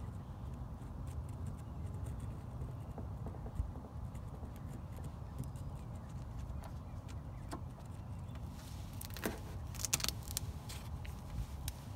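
Small clicks and taps of gloved hands pressing a patch onto the car body and handling a plastic glue bottle, with a cluster of sharper taps about nine to ten seconds in, over a steady low rumble.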